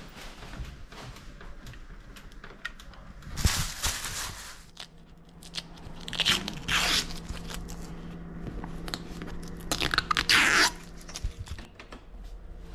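Protective plastic film being peeled off a new scooter seat, crackling and tearing in three rips a few seconds apart.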